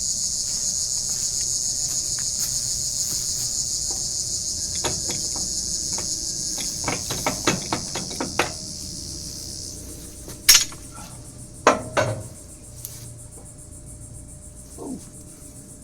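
A steady high-pitched chorus of insects that cuts off suddenly about ten seconds in, over a string of light metal clinks and a few sharper clanks, the loudest about ten and a half seconds in, from tools and parts of a hydraulic cylinder being taken apart.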